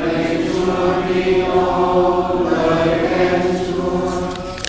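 Voices chanting together in unison, a slow sung response with long held notes that change pitch every second or so, typical of the acclamation after the Gospel reading at Mass.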